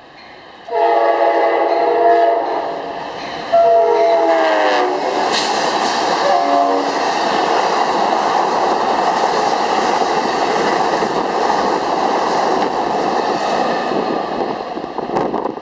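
Amtrak passenger train passing at speed: the locomotive's horn sounds two long blasts and a short one, then the steady rushing and rail clatter of the double-deck Superliner cars going by.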